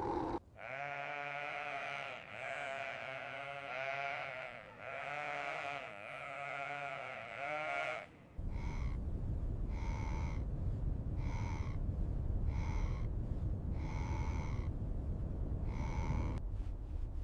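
Sheep bleating in long, wavering calls for about eight seconds. Then a steady low wind rumble sets in, with short calls repeated about every second and a bit.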